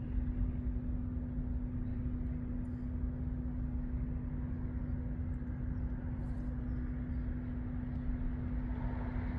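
The Trailblazer SS's 408 cubic-inch stroker V8, built on a 6.0 L LQ9 iron block, with long-tube headers, idling steadily: a low rumble with a constant hum over it.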